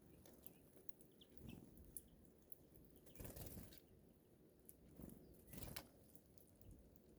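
Faint flutters of small birds' wings at a seed feeder, the two strongest about three and a half and five and a half seconds in, with a few soft chirps.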